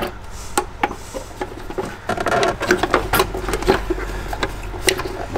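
Irregular clicks and knocks of a hose-clip tool and clips as an intercooler pipe is worked loose, with a low steady hum underneath.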